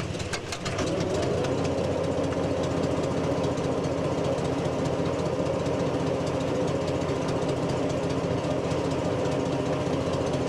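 Ferret scout car's Rolls-Royce six-cylinder petrol engine running steadily, with a few sharp clicks in the first second.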